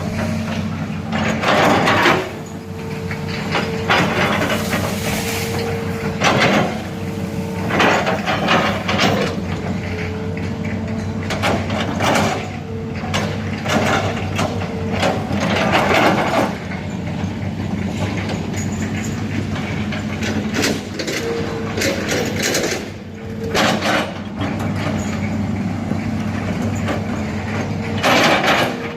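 Hydraulic excavator's diesel engine running steadily under load, with a knock or crack every second or two as the machine works.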